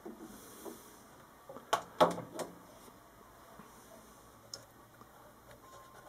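A few sharp knocks and clicks over quiet room tone: three close together about two seconds in, the middle one the loudest, and a single faint click later.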